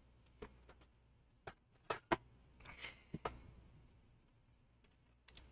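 Faint, scattered small clicks and taps, about half a dozen, of a thin hand tool and tiny screws being worked around a laptop speaker in an opened MacBook Pro chassis, with a brief soft rustle a little under three seconds in.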